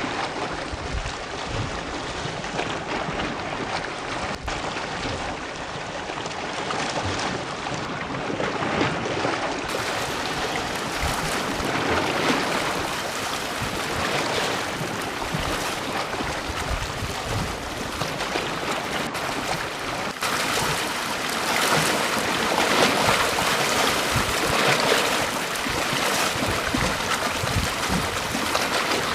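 Sea waves breaking and washing on a beach: a continuous wash that swells and eases in slow surges, louder in the second half.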